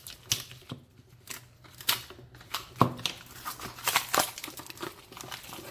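Stiff plastic blister packaging being worked open by hand, with irregular crackles and sharp clicks.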